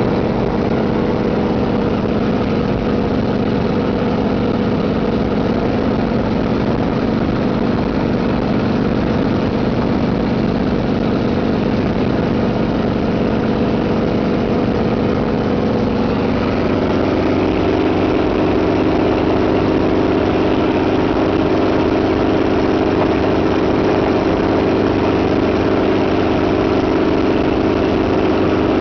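Helicopter engine and rotor running steadily in flight, heard from inside the cabin as a constant loud drone, with the airstream rushing over the microphone. The drone's pitch shifts slightly about two-thirds of the way through.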